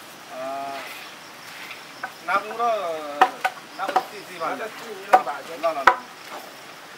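Pork frying in a large wok, stirred with a long-handled spatula: a steady sizzle with several sharp clanks of the spatula against the pan, the loudest after about three seconds.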